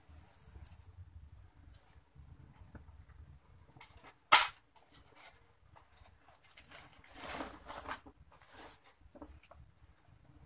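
Faint scratching and rustling of thin wire and small beads being handled and twisted by hand. One sharp, loud click comes a little over four seconds in, and a longer rustle about seven seconds in.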